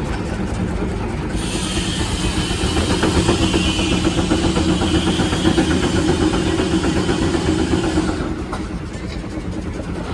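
A 75 HP Case steam traction engine running a belted sawmill, with a steady low rumble. A loud high hiss starts suddenly about a second in and cuts off suddenly near the end.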